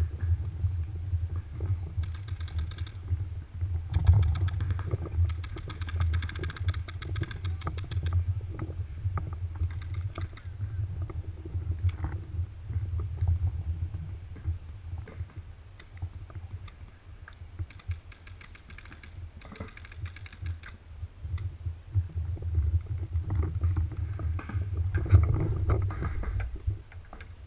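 Low wind rumble on the action camera's microphone, with several bursts of rapid paintball marker fire, strings of quick shots, the longest lasting a few seconds.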